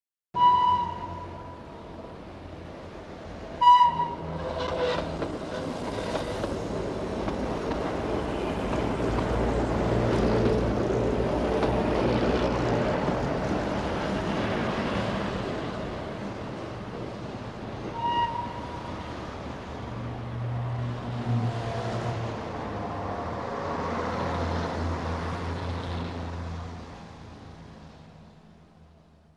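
Locomotive running along the track, with three short toots of its signal: one right at the start, one about four seconds in and one about eighteen seconds in. The running noise swells and then fades away near the end.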